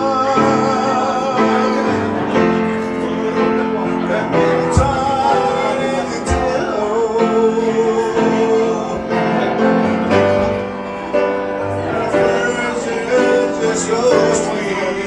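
Music: a song with a singing voice over held instrumental chords.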